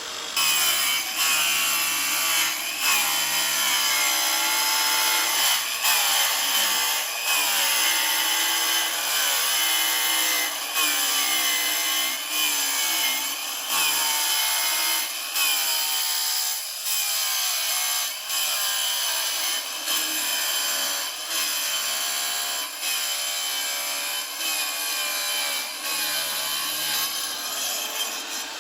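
Repeated back-and-forth scraping or sawing strokes, roughly one a second, each with a squealing, wavering edge.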